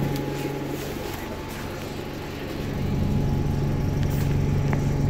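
Wright StreetLite single-deck bus's engine heard from inside the passenger cabin: a steady low drone that grows louder about halfway through.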